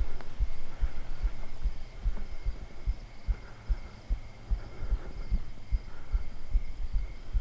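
Heartbeat thumping: a quick, uneven run of low beats, two to three a second, with faint steady high tones behind it.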